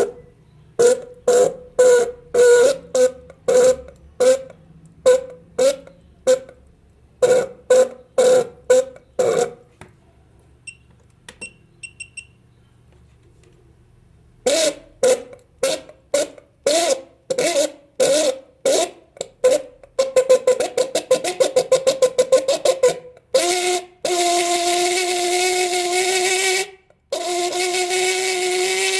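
Electric car horn sounding in short honks, about two a second, with a break of a few seconds midway. It then gives a rapid string of short honks and ends in a long, steady blare.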